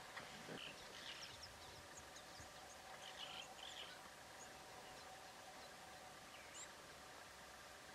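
Quiet bush ambience near silence, with faint scattered bird chirps over a low steady background.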